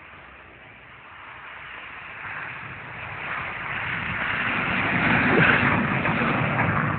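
Ford Fiesta's engine running hard with its tyres hissing over snow as the car drifts toward and past, growing steadily louder to a peak about five seconds in, then falling away near the end.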